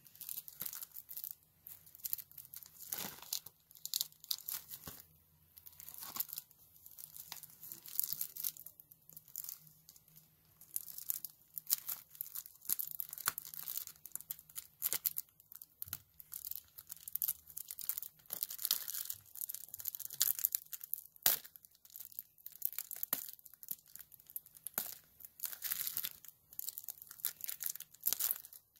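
Plastic shrink wrap being torn and peeled off a Blu-ray case, crinkling in irregular bursts with sharp crackles.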